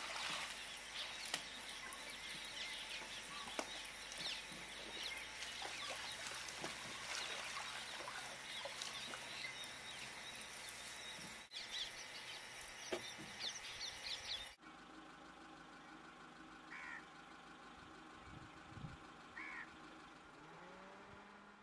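Many wild birds chirping and calling at once, a busy natural chorus. About two-thirds of the way through it cuts abruptly to a quieter background with only a few single bird calls.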